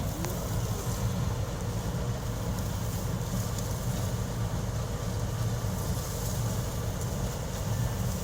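Engine of a wheat harvesting and straw-making machine running steadily with a deep, even drone.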